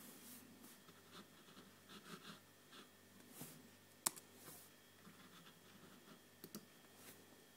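Faint rustling, then a single sharp laptop key click about four seconds in, as the typed address is entered and the page loads, and two quick lighter clicks near the end.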